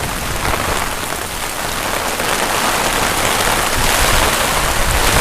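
Torrential rain pouring down in a severe thunderstorm, a dense steady hiss that swells gradually toward the end, with wind gusting at the microphone.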